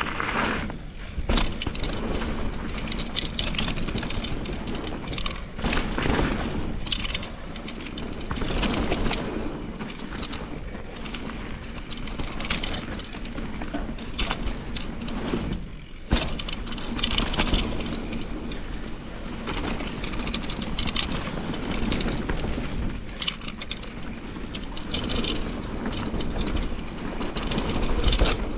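Mountain bike riding down a wet downhill trail: a steady rush of tyre and riding noise broken by frequent rattles and knocks from roots, jumps and landings, with sharp hits about a second in and about 16 seconds in.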